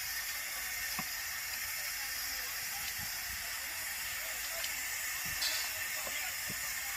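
Fire burning in a railway coach: a steady hiss with scattered faint crackles and pops.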